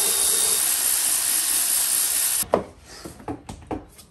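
A loud, steady rushing hiss that cuts off abruptly about two and a half seconds in, followed by a sharp knock and several lighter clicks.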